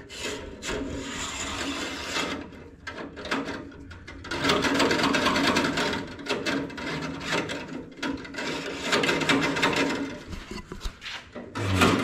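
Steel trunk-latch release cable of a 1961 VW Beetle scraping and rubbing as it is pushed by hand through its guide hole in the body, in several spells of rasping with a lull about two seconds in. The cable is not coming through easily, and the owner wonders whether the passage is painted shut.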